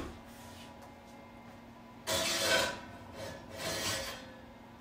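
Brief scrape of a cast iron pan sliding onto an oven rack, about two seconds in, with a fainter scrape a little over a second later.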